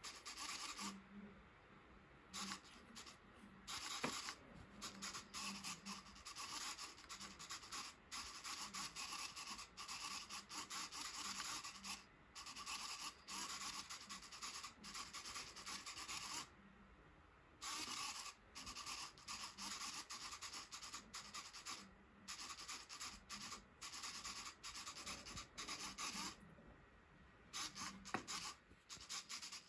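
Small hobby servo motor buzzing and twitching in rapid, jerky bursts as it tilts a cardboard beam back and forth, with a small ball rolling and rubbing on the cardboard; the constant little corrections are a PID controller working to keep the ball balanced. The buzzing stops briefly a few times.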